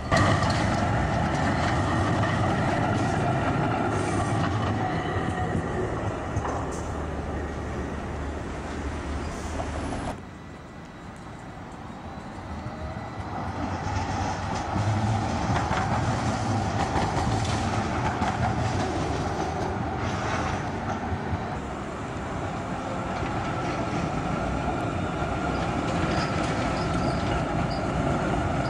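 Karlsruhe high-floor articulated trams running on street track: wheels rumbling and clattering over the rails. The sound drops suddenly about ten seconds in, then builds again as a second tram passes, with a steady high wheel squeal near the end.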